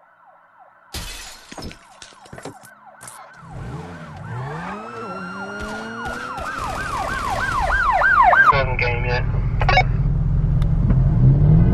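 Siren wailing, its rise and fall speeding up into a fast yelp and growing louder, then breaking off about three-quarters of the way through as a low steady rumble takes over.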